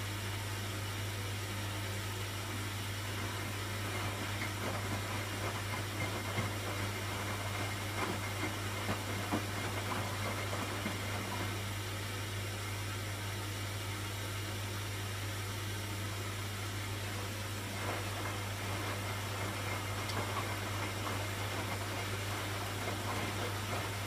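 Hoover front-loading washing machine running its short 9-minute Refresh programme: a steady motor hum while the drum turns the wet laundry, with soft irregular swishes and knocks from the tumbling clothes.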